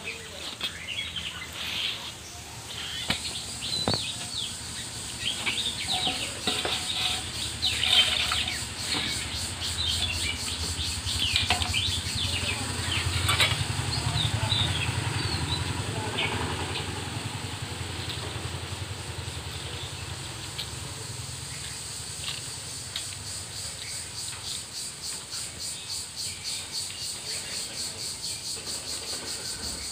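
Birds chirping in many short calls through the first half, over a steady high buzz that pulses about twice a second near the end; a low hum swells and fades in the middle.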